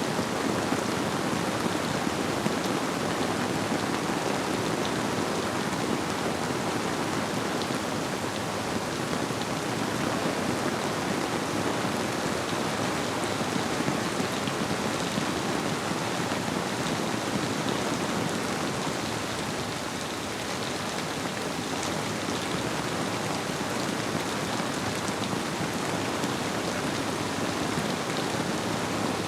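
Steady rainfall, with a dense patter of drops hitting surfaces, blended with a flowing river.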